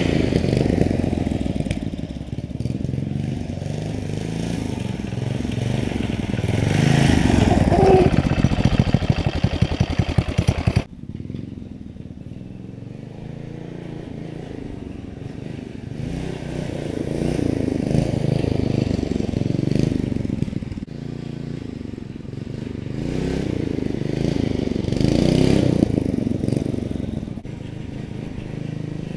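A 212cc single-cylinder mini bike engine running as the bike is ridden, rising and falling in pitch as it revs and passes by. It drops off sharply about eleven seconds in, then swells back several more times.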